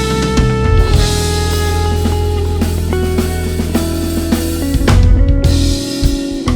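A live band playing, with a drum kit and cymbal wash over held bass notes and sustained chords. There is a loud hit of drums and crash cymbal about five seconds in.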